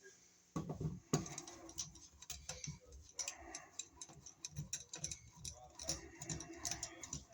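Screwdriver backing out the screws of a wall receptacle and its cover plate: a run of small, irregular clicks and light knocks of metal and plastic.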